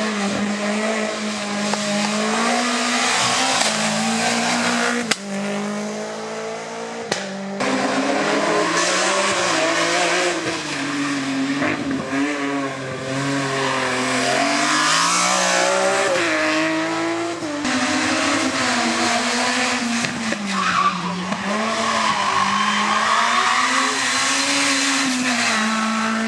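Hillclimb race car engines revving hard, pitch rising and falling with gear changes and corners, with tyres squealing. The sound cuts abruptly about five, seven and seventeen seconds in as one car's passage gives way to the next.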